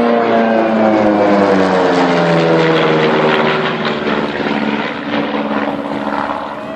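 Propeller aircraft passing close by at an air show, its engine note falling in pitch as it goes past and then fading away.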